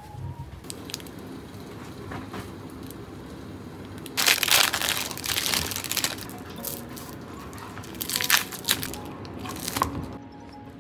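Plastic wrapping crinkling and crackling as it is handled, in two spells of a second or two, with a few sharp clicks between them.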